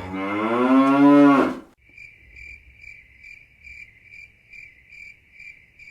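A long moo that rises in pitch and ends about one and a half seconds in. Then an even run of cricket chirps follows, about two and a half a second.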